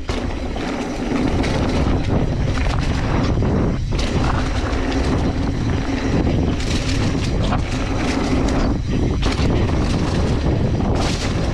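Wind buffeting a point-of-view camera's microphone and mountain-bike tyres rolling over packed dirt during a fast descent, a loud steady rumble, with a few brief knocks from the bike over bumps.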